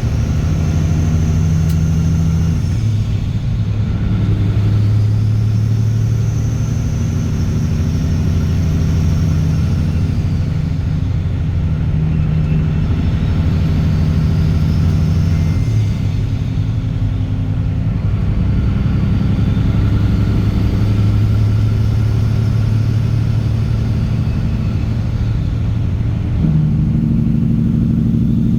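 Caterpillar C15 ACERT inline-six diesel with a straight-pipe exhaust running under way, a steady low drone. Its pitch steps to a new level about three seconds in, again about halfway through, and near the end.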